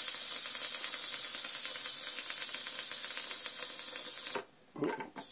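Steam hissing hard from the pressure-release vent valve of an ASDA GPC201SS-20 electric pressure cooker during a manual quick release at still very high pressure, with a fast, even flutter in the hiss. The hiss cuts out for about half a second some four seconds in, then resumes.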